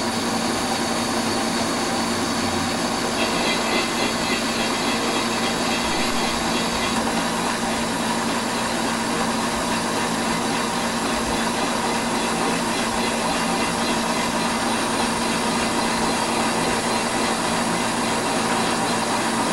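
Valve seat machine running steadily as its cutter slowly bores the oversize valve seat pocket in an aluminium Shovelhead cylinder head, with the hiss of a mist oiler over the cut. A higher whine joins about three seconds in.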